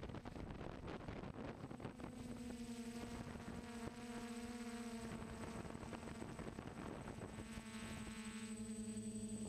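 DJI F450 quadcopter's brushless motors and propellers humming steadily in flight, heard through the onboard camera, with wind buffeting the microphone, heaviest in the first two seconds. About two-thirds of the way through, more tones join the hum.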